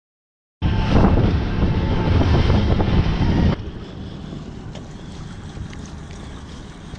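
Heavy wind buffeting the microphone for about three seconds, then an abrupt cut to a quieter, steady wind and water hiss with a few faint taps.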